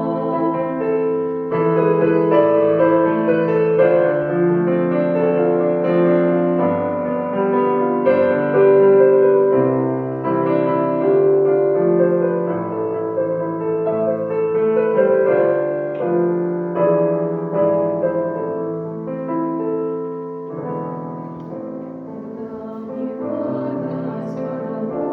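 Piano playing an instrumental passage of a song: a slow melody over held chords, with no voice.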